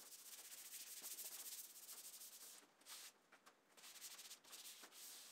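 Faint hand sanding of a hardwood table base: quick scratchy back-and-forth strokes of abrasive on wood, pausing briefly a few times.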